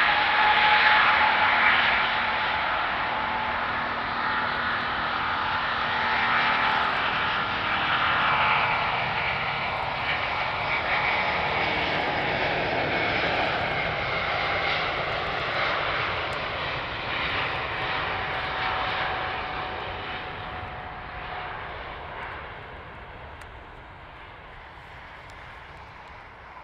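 Airbus A350-900's Rolls-Royce Trent XWB turbofans at takeoff thrust during the takeoff roll: a loud, steady jet roar with a high whine. It fades gradually over the last several seconds as the airliner accelerates away down the runway.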